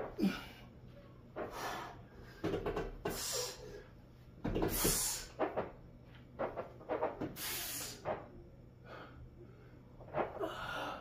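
A person breathing hard in forceful, uneven breaths between soft knocks and bumps while exercising.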